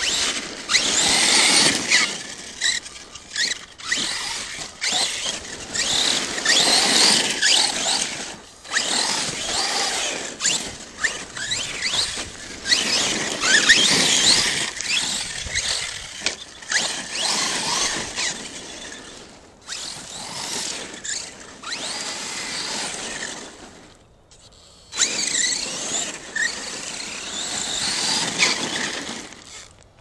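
ARRMA Kraton 6S RC monster truck driven hard on loose dirt: its brushless motor gives a high whine that rises and falls with the throttle, over the rush of tyres on dirt and gravel. It eases off for brief lulls about a third of the way in and twice more in the later part.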